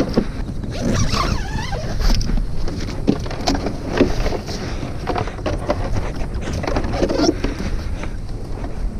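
Handling an Ocean & Earth padded surfboard bag: the zip is run open and the board slid out. The fabric rustles and scrapes in irregular short bursts.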